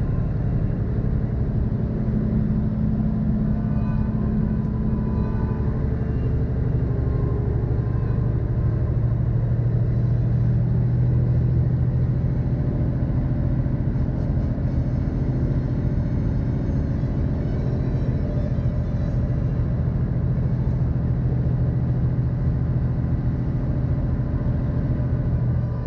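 Mercedes-Benz Actros diesel truck driving, a steady low engine and road drone.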